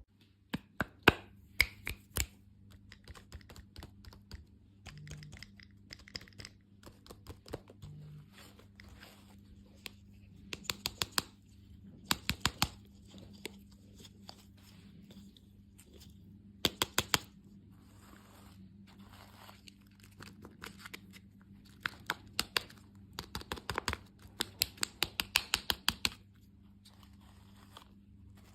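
Plastic candy wrappers being torn open and crinkled, in bursts of sharp crackles with short pauses between.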